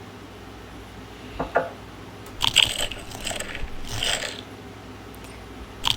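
Small hard toy pieces clicking and clattering as they are handled, in a cluster of sharp bursts lasting about two seconds.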